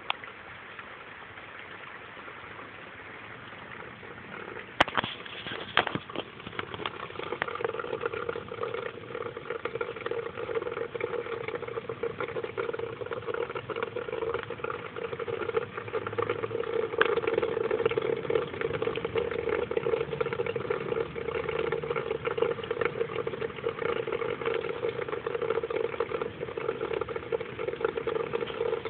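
A steady motor hum sets in about seven seconds in and keeps going, with two sharp knocks shortly before it.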